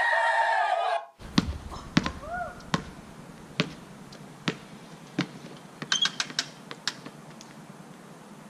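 Music cuts off about a second in; then a basketball bounces on a stone patio in a slow dribble, a sharp knock every half to nearly one second, with a quick flurry of knocks about six seconds in.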